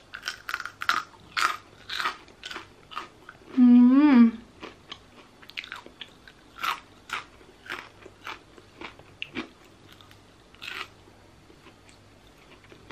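A person biting and chewing air-fried potato fries, a run of short crunches, with a short "mmm" hum about four seconds in.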